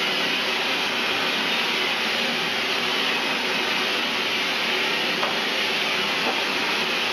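Steady, unchanging machine hiss, with two faint clicks about five and six seconds in.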